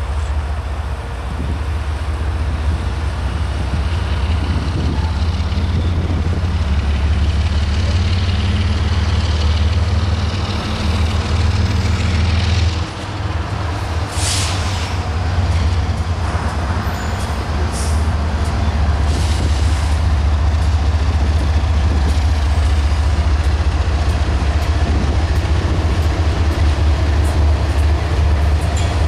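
Several BNSF GE Evolution-series diesel locomotives approaching and passing at the head of a double-stack container train, engines running with a steady deep rumble. A brief hiss comes about halfway through.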